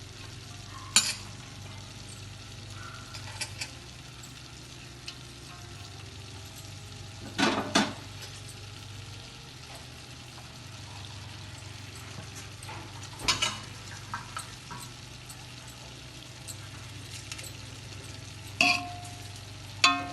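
Metal spoon scooping drained cooked rice into a pot, with a handful of sharp clanks against the pot a few seconds apart, the one near the middle longer and scraping. A steady low hum and faint hiss run underneath.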